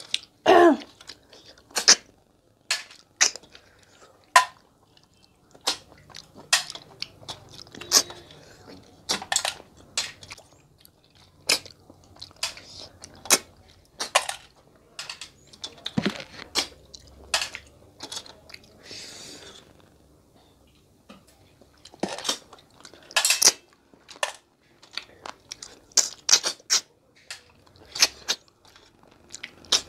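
Two people sucking cooked river snails out of their shells, a long run of short, sharp slurps and sucks at irregular intervals, a few a second, with chewing in between.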